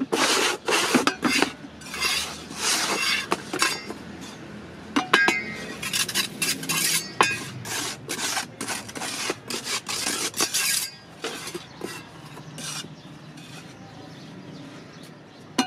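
Steel trowel scraping and smoothing wet cement mortar across a roof-tile mould in quick repeated strokes, with sharp metallic clinks as the blade catches the mould. The strokes thin out and grow quieter over the last few seconds.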